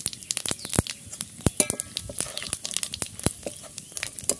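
Whole cumin seeds and dried red chillies crackling and spluttering in hot oil as a tempering, a dense, irregular run of sharp pops.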